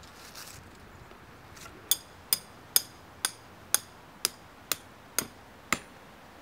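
A hand hammer striking nine times at a steady pace of about two blows a second, each blow sharp with a short bright ring.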